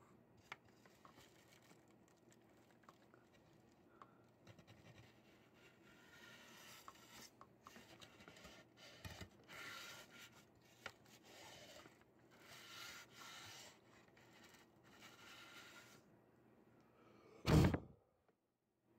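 Toothbrush bristles scrubbing dust off the sheet-metal chassis floor of a Pioneer VSX-3000 stereo receiver, in soft, irregular scraping strokes. One louder thump comes near the end.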